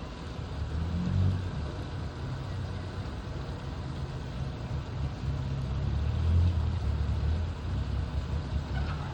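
Tugboat engine running with a steady low rumble, swelling about a second in and again around six seconds as it works to tow a pontoon.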